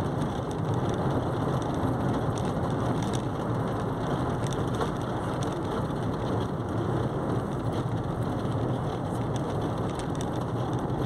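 Car driving at speed on a paved highway: a steady hum of tyres and engine heard from inside the cabin.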